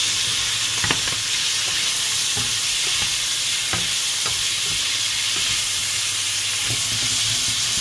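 Chicken feet, gizzards and livers sizzling steadily in oil in a nonstick frying pan while a wooden spatula stirs them, with scattered clicks of the spatula against the pan.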